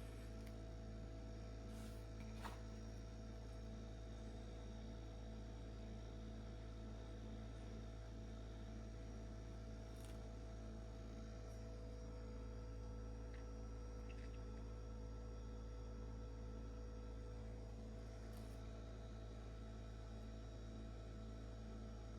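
Pacificool portable fridge's compressor running with a faint, steady low hum made of several steady tones, with a few soft ticks.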